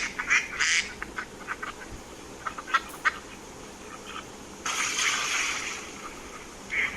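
Ducks quacking in a quick series of calls that thin out after about a second into scattered short sounds. About two-thirds of the way in there is a second-and-a-half rush of even noise, and quacking starts again just before the end.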